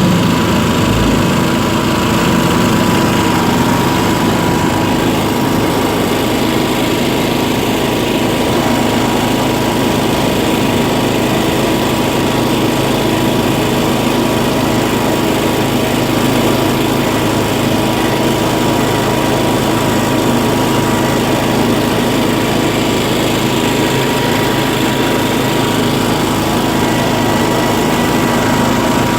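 Small off-road vehicle engine running at a steady speed, with no clear revving.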